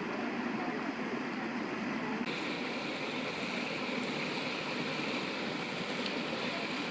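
Steady rush of flowing river water. The sound turns brighter and hissier about two seconds in.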